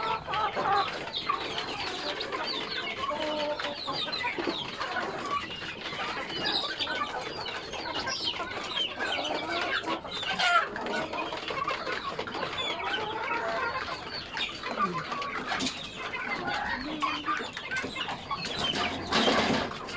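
Many chickens clucking and calling over one another, a dense, continuous chatter of short calls. A brief noisy burst breaks in near the end.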